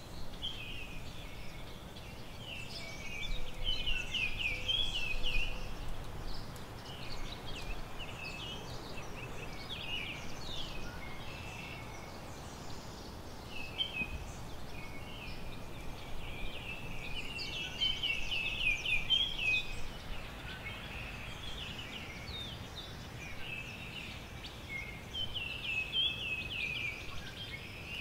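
Small songbirds chirping and singing in bouts of rapid trills, over a faint steady outdoor hiss.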